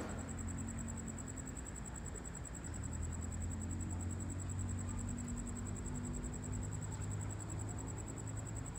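Steady low hum of a parked airliner's air conditioning, growing a little stronger about three seconds in, with a faint high-pitched whine pulsing rapidly throughout.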